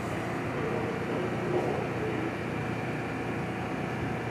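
A New York City subway train standing at the platform with its doors open, giving off a steady hum from its air-conditioning and onboard equipment.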